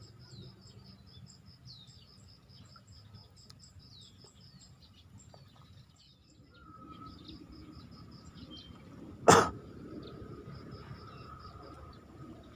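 Swamp ambience: a fast, even train of high insect chirping with scattered short bird chirps, and a steady drone joining a little past halfway. One sharp, loud knock about nine seconds in.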